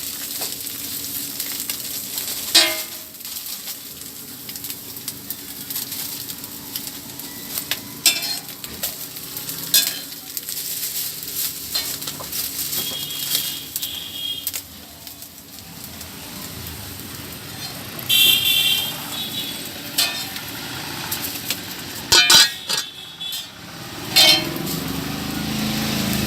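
Chicken frying in oil with a steady sizzle, broken now and then by sharp clinks of a metal utensil against the pan. Street traffic runs behind it, with a few short horn toots.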